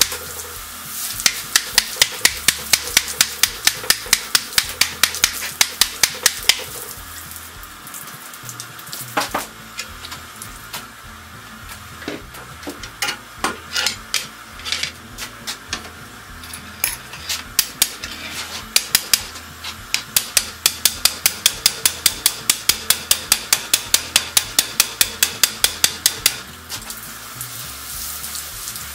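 Hammer tapping the steel tire of a spinning wooden buggy wheel in quick, even runs of about five taps a second, with slower, uneven strikes in the middle, over the hiss of a steam hose. Tapping the rim of a turning wheel and listening to its ring is how a wheelwright judges whether the tire is tight.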